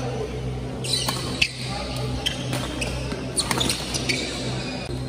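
Badminton rally: several sharp racket strikes on a shuttlecock, the loudest about a second and a half in, with a quick cluster of clicks near the end, over a steady low hum.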